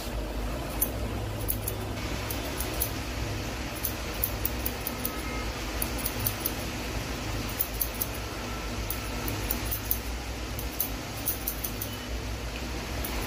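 Barber's scissors snipping hair in short runs of quick metallic clicks with pauses between, over a steady low hum.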